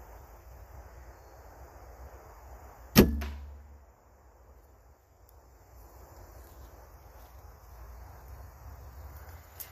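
Hoyt compound bow being shot: one sharp, loud snap of the string release about three seconds in, ringing off over about a second, with a fainter crack right after it. A small tick comes near the end.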